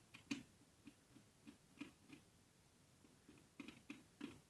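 Faint, irregular small clicks and ticks of a screwdriver turning a screw on a barrier-type screw terminal strip while a wire is fastened.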